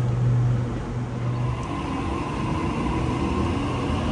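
Sydney Trains Waratah double-deck electric train starting to pull away from the platform: a steady low hum, then from about one and a half seconds in a whine from the traction motors that rises slightly in pitch as it gets moving.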